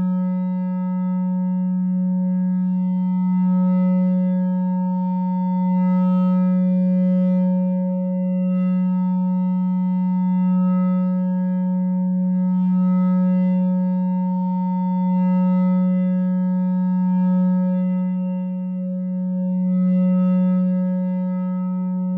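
No-input mixer feedback drone: a two-channel mixer looped into itself through an effect pedal, holding one steady low tone with fainter overtones above it. It swells and eases every two or three seconds, with a faint hiss flickering in now and then.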